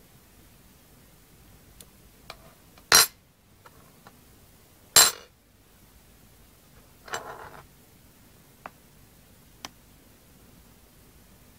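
Hard objects clinking and knocking against a container: two sharp, loud clinks about two seconds apart, then a brief rattling cluster and a few faint ticks.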